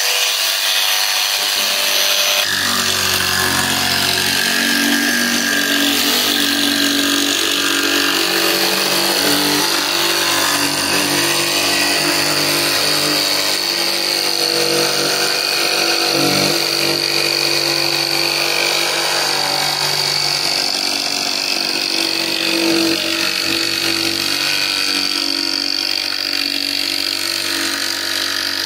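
DeWalt DCS335B cordless barrel-grip jigsaw running steadily, its blade cutting a curve through plywood, with the orbital action turned up to full.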